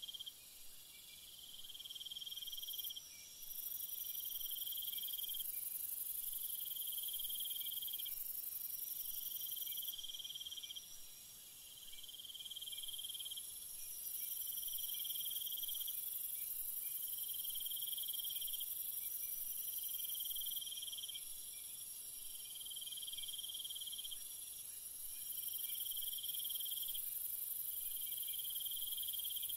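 Insects chirping: short trills repeating about every two seconds over a steady high-pitched insect hiss.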